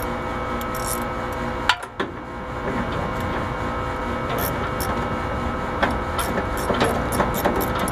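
A steady mechanical hum, with a sharp click about two seconds in. In the second half comes a run of small metallic clicks, about three or four a second, from a ratchet and socket loosening an air-conditioner compressor's mounting bolt.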